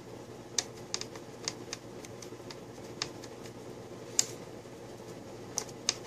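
Light, scattered clicks and taps, about eight in all, of a small screwdriver working the screws that hold a laptop hard drive in its drive bay, over a faint steady hum.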